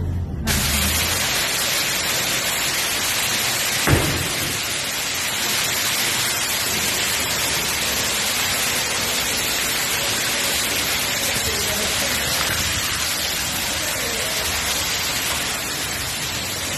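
Heavy rain pouring down in a steady hiss, with a single knock about four seconds in.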